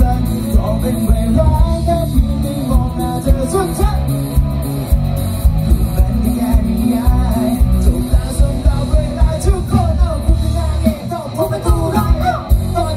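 Live band playing amplified pop-rock: a vocalist singing over drums and electric bass, with a steady drum beat and heavy low end.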